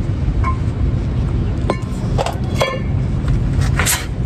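Metal hand tools and small brake parts clinking a few times, the loudest near the end, over a steady low rumble.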